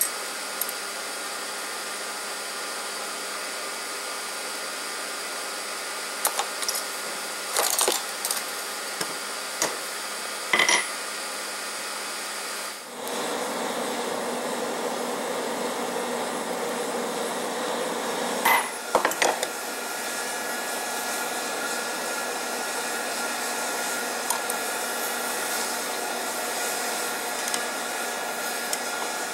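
Forge air blower running steadily, forcing air into the coal fire, with a few sharp metal knocks.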